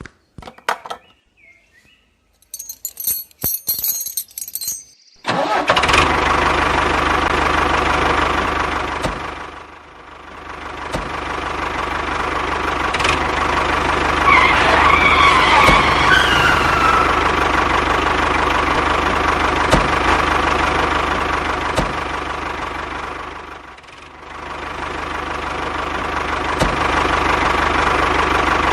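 Small electric motor of a homemade mini tractor's hole-drilling rig whirring steadily. It starts about five seconds in after a few light clicks, and twice sags briefly before picking back up.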